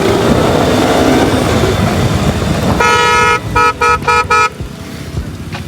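Wind and road noise while riding in traffic, then about three seconds in a vehicle horn honks: one longer blast followed by four quick toots. The road noise drops away after the honking.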